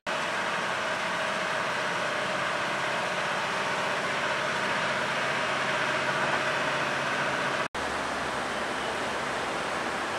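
Steady drone of idling diesel railcars at a station platform. After a brief cut near eight seconds in, the deeper rumble of a diesel locomotive hauling empty container flatcars past.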